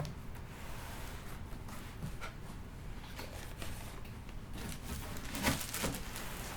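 Packaging being handled: faint rustling and light clicks, with a louder cluster of rustles about five and a half seconds in.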